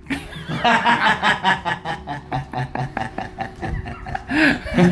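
Two men laughing together, a long run of quick chuckles repeating about five times a second.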